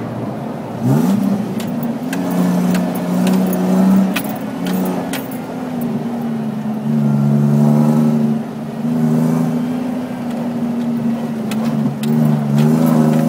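Off-road 4x4 engine pulling hard while driving fast over soft sand, heard from inside the cabin. Its pitch climbs about a second in, then rises and falls with throttle and gear changes. Sharp clicks and rattles come from the cabin throughout.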